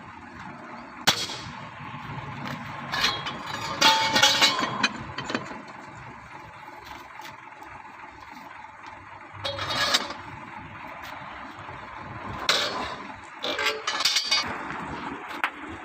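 Metal clanks, clinks and scrapes from tools and wheel nuts being worked while a truck wheel's nuts are loosened and removed. There are a few separate knocks, with a busier cluster of clanking around four seconds in and again near the end.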